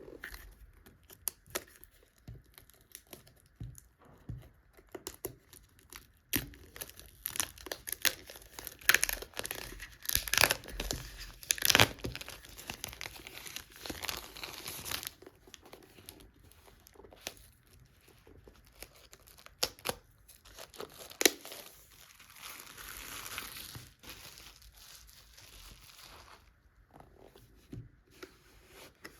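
Packaging being crinkled and torn by hand, with many small clicks and knocks of handling; the rustling is busiest in the middle, then settles into a softer steady rustle for a few seconds.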